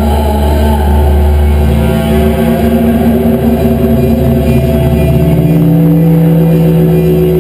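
Loud live industrial noise music: layered electronic drones over a deep steady hum, with slowly sliding tones and a new held tone coming in about five seconds in, sounding somewhat like an engine.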